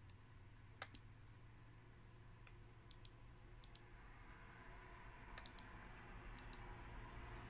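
Faint clicks on a laptop, most of them in quick double clicks, about seven times over a low steady hum.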